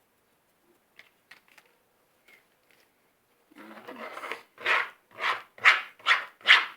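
A spoon beating a sticky mix of shaving foam, glue and borax in a bowl to make slime. There are a few faint clicks at first, then loud, regular scraping strokes about two a second from about halfway through.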